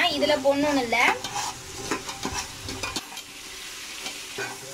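Steel ladle stirring and scraping a thick masala paste frying in oil and ghee in an aluminium pressure cooker, with a soft sizzle and scattered scrapes against the pot's bottom. The masala is being fried down until the oil and ghee separate from it.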